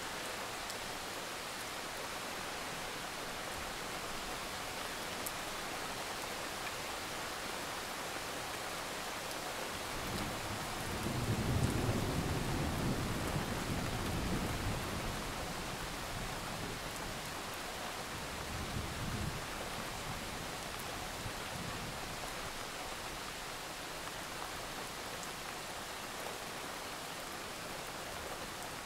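Steady rain falling. About ten seconds in, a low roll of thunder swells and dies away over several seconds, followed by a weaker rumble a few seconds later.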